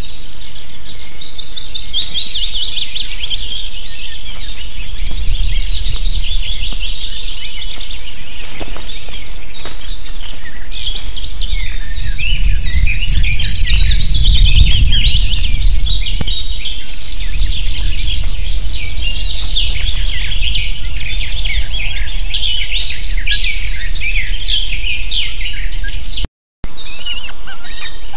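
Ospreys calling at the nest: a long run of rapid, high, piping chirps that goes on almost without a break. Wind rumbles on the microphone, strongest about halfway through, and the sound cuts out for a moment near the end.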